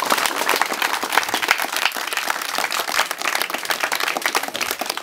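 Audience applauding, with many hands clapping.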